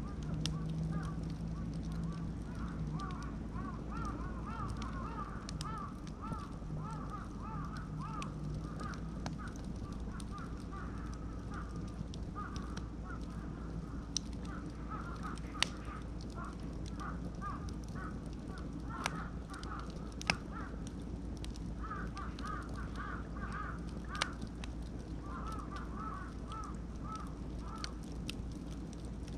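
Beech and oak bonfire burning, with a few sharp crackling pops from the wood. A long run of short repeated calls goes on through it.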